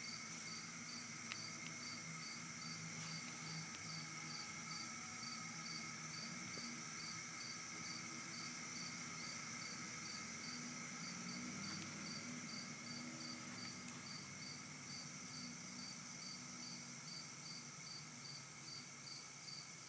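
Insects chirping: a regular high chirp repeating about two and a half times a second over a steady high-pitched insect hiss.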